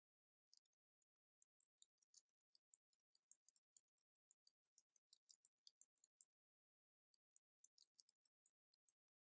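Faint typing on a computer keyboard: a quick run of key clicks, a pause of about a second roughly six seconds in, then more keystrokes.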